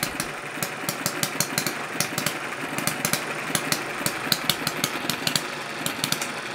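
Small single-cylinder four-stroke hit-and-miss model engine running on petrol: a fast, steady mechanical clatter with sharp clicks at uneven intervals over it.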